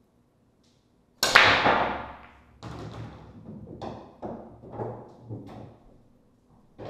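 Break shot on a Valley coin-op pool table: about a second in the cue ball smashes into the racked balls with one loud crack. The balls then clatter apart, rumbling across the cloth with a string of separate knocks as they hit each other and the cushions, thinning out near the end.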